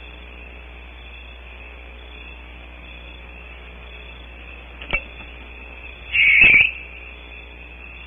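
Barn owl moving in its nest cavity: a single sharp click about five seconds in, then a harsh, scratchy burst of about half a second, over the steady hiss of the cavity camera's microphone.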